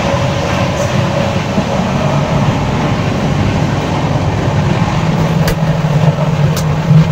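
Running noise of a moving passenger train heard from inside the coach: a steady rumble of wheels on track that grows a little stronger near the end, with a few sharp clicks in the last two seconds.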